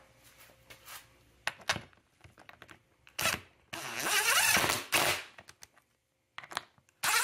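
DeWalt 20V cordless impact driver running the seat hinge bolts down tight into the seat's wooden base: a short burst about three seconds in, then a longer burst of a little over a second, with light clicks of handling before.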